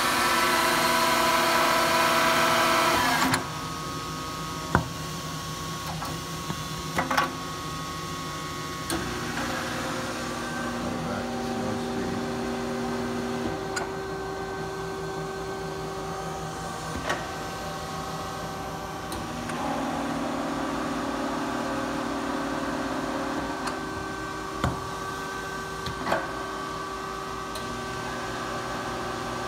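Kearney & Trecker horizontal milling machine running under power, a steady mechanical whine made of several tones. It is much louder for about the first three seconds, then drops to a lower level, with tones coming and going and a few sharp clicks.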